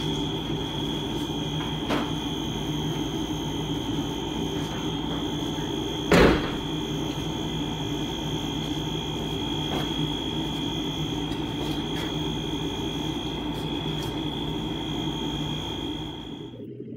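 A single loud thump about six seconds in, the Suzuki Kei truck's door being shut, over a steady low hum and a high-pitched whine.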